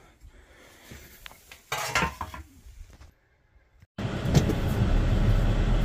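A short metallic clink and clatter about two seconds in. After a moment of near silence, from about four seconds a steady low rumble of a running vehicle heard from inside its cab, with one knock just after it starts.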